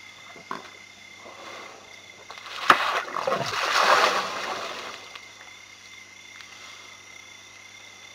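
Elephants drinking at a waterhole: a sharp slap of a trunk on the water about two and a half seconds in, followed by about two seconds of splashing and pouring water that fades out.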